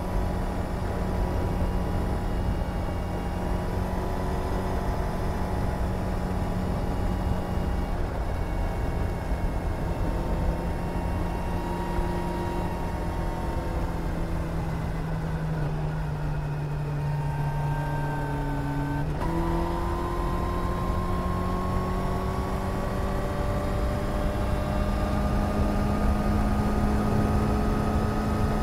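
Suzuki GSR 750's inline four-cylinder engine running under way at a steady speed. Its pitch drifts slowly down, jumps up suddenly about two-thirds of the way in, then climbs steadily as the bike speeds up.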